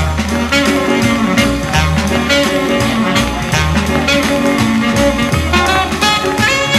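Instrumental music with no vocals: a repeating low bass line under pitched instrument parts.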